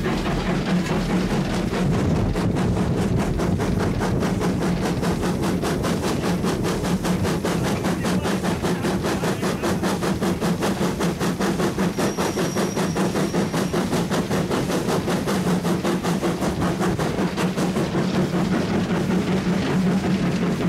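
BR Standard Class 2 2-6-0 steam locomotive 78022 running under steam, heard from its footplate: a quick, even rhythm of exhaust beats over the steady rumble of the engine and wheels on the track.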